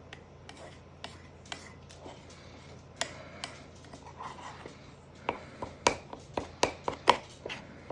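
A spoon stirring thick cake batter in a mug, clinking and knocking against the mug's sides in irregular strokes, more often in the second half.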